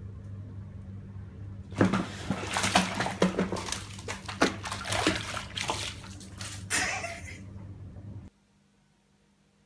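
Water splashing and sloshing in quick, irregular bursts for about six seconds, starting about two seconds in, over a steady low hum that stops near the end.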